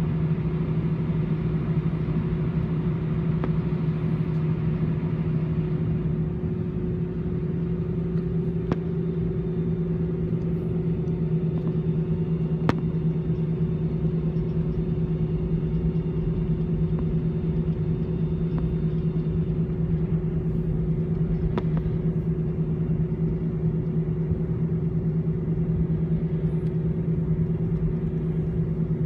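Airbus A318's CFM56-5B engines at idle thrust while the airliner taxis, heard inside the cabin as a steady drone with a low hum and a higher steady tone above it.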